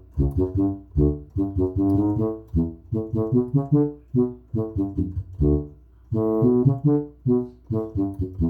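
Tuba voice of a modified Yamaha PSS-370 portable keyboard playing a bouncy tierra caliente-style bass line in short, detached notes, with a couple of longer held notes about six seconds in.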